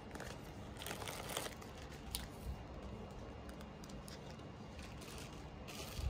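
Plastic poly mailer bag crinkling and rustling as it is handled while clothes are packed into it, with louder bursts of crinkling about a second in and again near the end.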